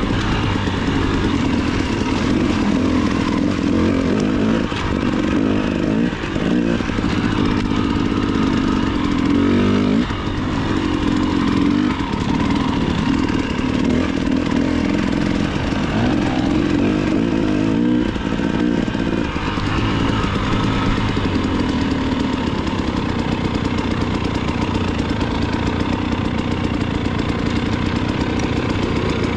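Dirt bike engine running on a trail ride, its pitch rising and falling with throttle and gear changes. In the last third it settles to a steadier, lower note as the bike slows toward a stop.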